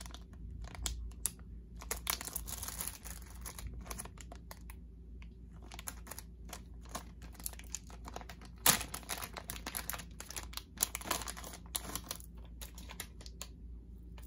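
Plastic zip-lock packaging bags crinkling as they are handled and opened, in two stretches of rustling, with one sharp snap about nine seconds in.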